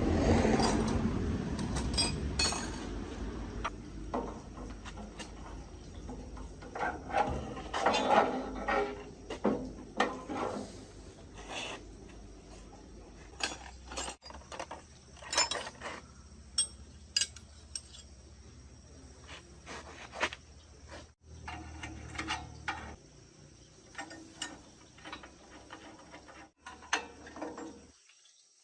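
Irregular clinks and knocks of metal tools and parts being handled, louder and busier in the first few seconds and broken by a few brief sudden gaps.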